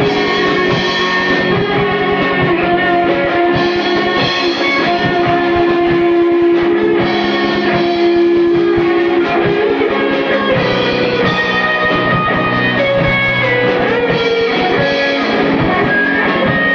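Live rock band playing: electric guitars over a drum kit keeping a steady beat, with one long held note in the middle.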